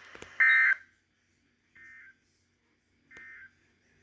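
Weather radio sending the EAS end-of-message data tones after a severe thunderstorm warning: three short buzzy bursts about 1.4 seconds apart, the first loud and the other two much fainter. There is a click just before the first burst.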